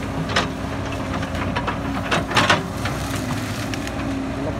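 CAT 312B hydraulic excavator's diesel engine running steadily under load, while the bucket works through brush and branches with a series of sharp cracks and snaps, the loudest about halfway through.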